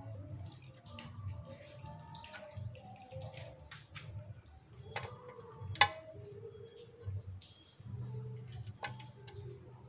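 Scattered metallic clicks and clinks of a ratchet wrench and hand tools being handled on a Nissan Frontier D22's top-mounted intercooler, with one sharp clack about six seconds in, the loudest. A low steady hum runs underneath.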